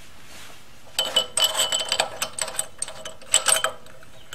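A run of quick, irregular metallic clicks and clinks for about three seconds, starting about a second in: a 10 mm wrench working the float bowl off a Predator 212 engine's carburetor.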